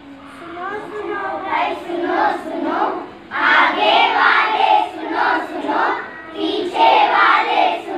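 A group of young children chanting together in unison, getting much louder about three seconds in.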